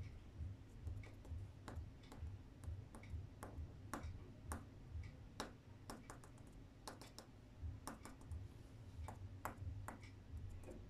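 Coloured pencil tip tapping dots onto paper laid on a table: irregular sharp ticks, a few a second.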